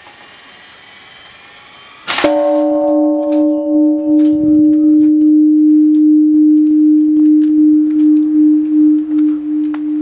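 Japanese temple bell (bonshō) tolled as the dawn bell: one strike with the wooden beam about two seconds in, then a deep hum that swells and sinks slowly. The higher overtones fade within a few seconds while the low tone rings on.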